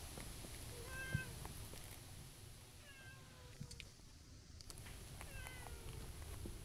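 Tortoiseshell cat meowing three times: a short call about a second in, a falling one about three seconds in, and a longer drawn-out one near the end.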